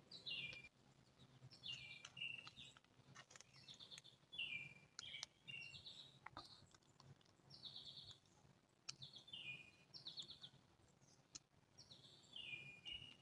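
Songbirds chirping faintly, a series of short phrases that step down in pitch, repeating every second or so, with a few light clicks in between.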